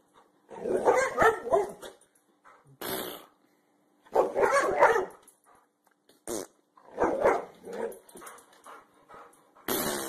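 Boxer dog barking in several loud, drawn-out outbursts with a growly edge, separated by short pauses.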